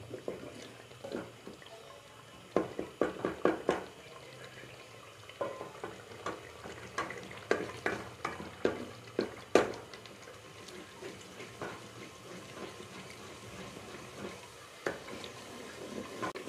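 Wooden spoon stirring and scraping an onion-and-garlic paste in an aluminium pot, knocking irregularly against the pot, with oil sizzling faintly underneath.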